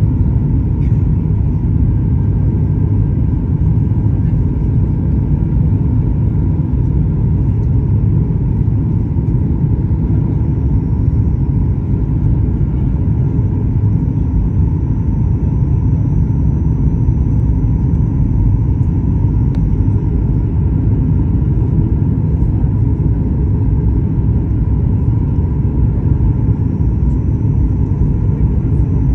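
Steady jet airliner cabin noise heard from a window seat beside the engine during the approach to landing: a low, even rumble of engines and airflow, with a faint steady tone above it.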